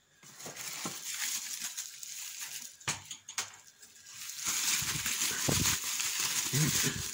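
Plastic bubble wrap crinkling and rustling as hands unwrap a packed part, with a couple of sharp crackles about three seconds in.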